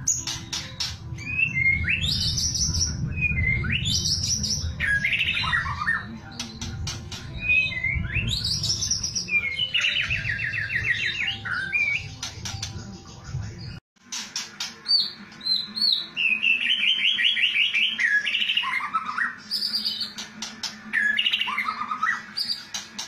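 White-rumped shama (murai batu) singing a varied song of rising whistles, fast rattling trills and sharp crackling clicks, the 'kretekan' style of murai song. The song cuts out suddenly for a moment about 14 seconds in, and a low rumble under the first half is gone afterwards.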